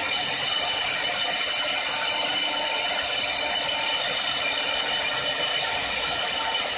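4-axis CNC woodworking lathe running and cutting wood: a steady high whine with several pitches over an even cutting hiss.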